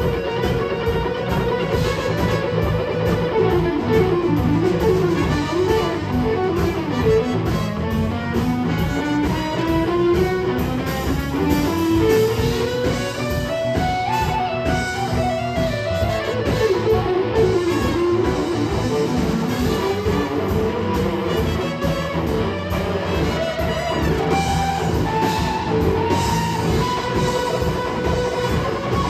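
Live blues-rock band playing an instrumental passage: an electric guitar lead line winds up and down in pitch over a steady bass and drum beat.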